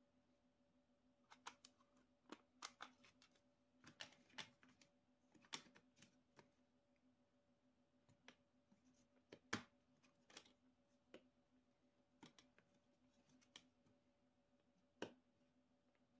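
Acrylic panels of a mini ant farm kit clicking and tapping against each other as they are fitted and pressed into their slots by hand: scattered sharp clicks, irregularly spaced, with two louder snaps in the second half, over a faint steady hum.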